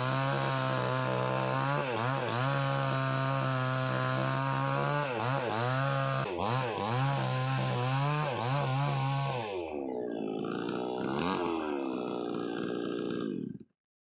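Gasoline chainsaw running at high revs, its pitch dipping and recovering again and again as it is worked. About ten seconds in the revs fall away steadily, and the sound cuts off abruptly just before the end.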